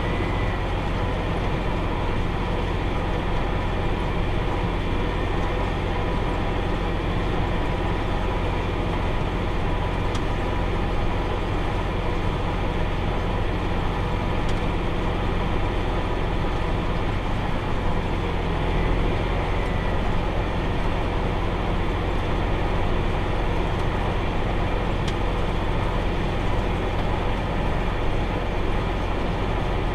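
Tractor engine running steadily under load as it pulls a round baler through hay, a continuous low drone with the baler's machinery turning.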